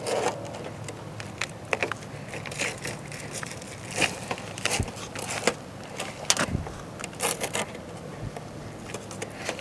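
Hands pressing and rubbing a granule-surfaced, self-adhesive stone wrap sheet down onto a metal chimney saddle, making scattered crackles, scrapes and taps of grit and sheet, over a faint steady low hum.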